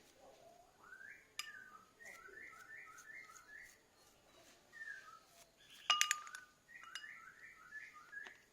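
A small bird chirping in runs of short rising notes, a few a second. About six seconds in comes a sharp clink with a brief metallic ring, the loudest sound.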